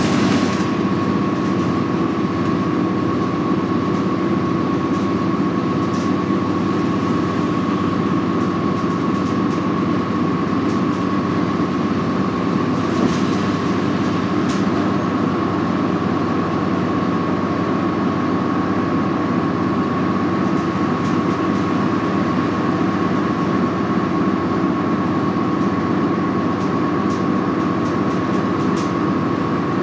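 Cabin noise of a New Flyer D40LF transit bus cruising at highway speed: its Cummins ISL six-cylinder diesel and Allison B400R automatic transmission running steadily under road and tyre noise, with a steady high whine throughout.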